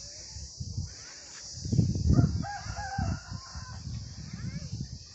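A rooster crowing once, a little over two seconds in, over a low rumble that is loudest around the same moment.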